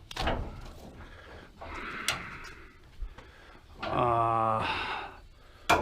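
Hand work on a truck's hood: sharp clicks and light knocks with scraping and shuffling between them, and about four seconds in a short steady hum, like a man's "hmm."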